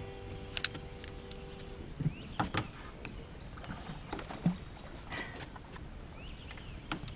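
Scattered light knocks and clatter in a small fishing boat on the river, over a steady background hiss, with a faint steady high tone throughout.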